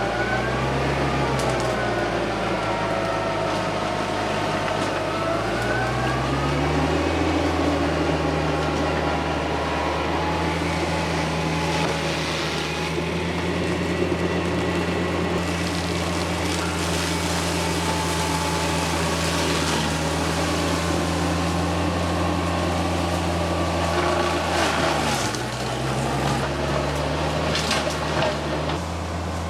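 TYM tractor's diesel engine running a rear-mounted Baumalight MP348 forestry mulcher. The engine speed climbs about seven seconds in and holds steady, then dips briefly near the end and climbs again.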